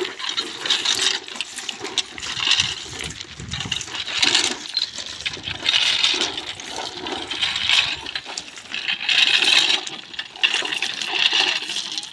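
Crushed-stone railway ballast being raked and scraped by hand during track dressing, the stones rattling and crunching in repeated strokes about every one to two seconds.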